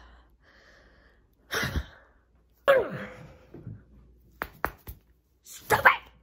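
A woman's wordless angry vocal outbursts: a sharp breath about a second and a half in, then a loud cry that falls in pitch, followed by two short clicks.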